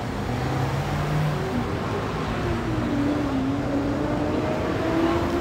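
City street traffic: a car engine running as a vehicle moves along the road, over the steady hum of traffic, its note dipping and then rising.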